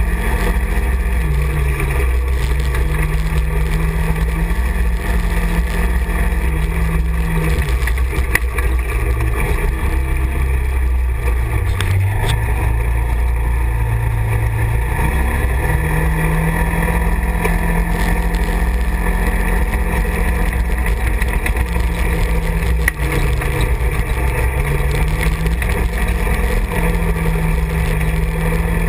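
Side-by-side UTV's engine running under way, its note rising and falling with the throttle. It eases to a lower note around the middle of the stretch, then picks up again.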